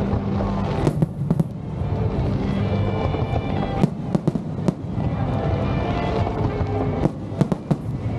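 Fireworks bursting in sharp cracks and bangs, scattered with a quick cluster near the end, over music playing throughout.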